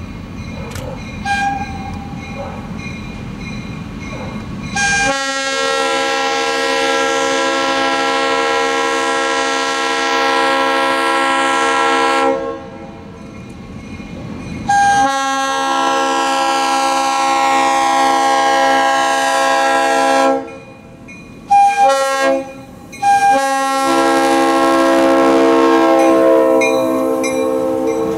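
Diesel freight locomotive's multi-chime air horn sounding a grade-crossing signal as the train approaches: two long blasts, a short one, then a final long blast held as the locomotives draw level. A low diesel rumble runs under it before the horn starts.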